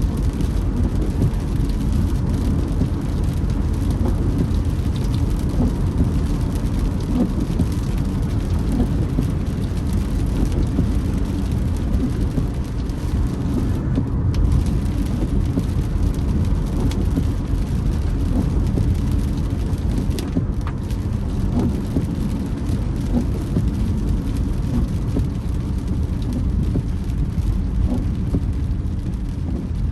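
Steady road and engine rumble inside a car driving in the rain, with rain noise on the car.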